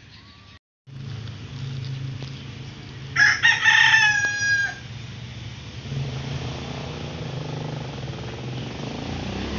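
A rooster crows once, about three seconds in, the call falling in pitch at its end. Under it runs a steady rush of water being poured from a cooking pot over a slaughtered chicken in a plastic basin.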